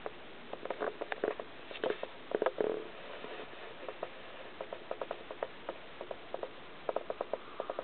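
A run of small, irregular clicks and taps, several bunched closely about two seconds in, over a faint steady hiss.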